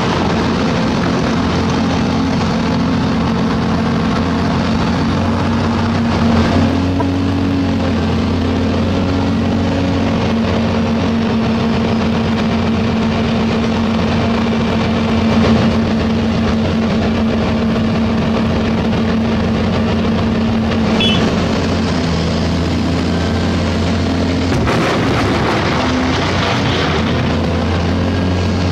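Hyundai 480LC excavator's diesel engine running steadily under load, heard from the cab, its note stepping up and down a little as the hydraulics swing the boom and work the bucket.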